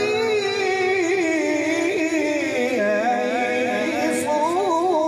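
A voice reciting the Quran in the melodic tajweed style, drawing out long ornamented notes without a break. The pitch rises at the start and climbs to a higher, wavering passage near the end.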